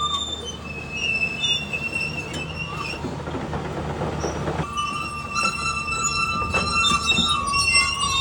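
High-pitched metal-on-metal squealing over a low machine rumble, with occasional clicks; the squeal holds at a few fixed pitches and shifts pitch a few times.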